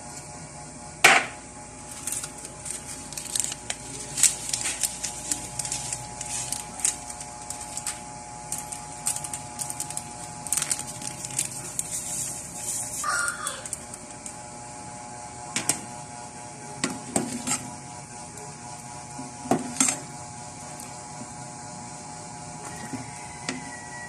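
Cooking utensils and cookware clinking and knocking, irregular sharp clicks and clatter with the loudest knock about a second in, over a steady hum.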